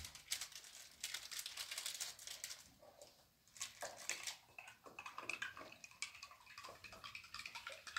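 A spoon stirring a drink in a glass, with many quick, light clinks of metal on glass.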